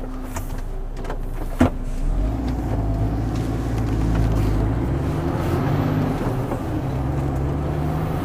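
Articulated lorry's diesel engine heard from inside the cab, pulling away from a stop: it grows louder about two seconds in and the revs climb in pitch as it gathers speed. One sharp click sounds about one and a half seconds in.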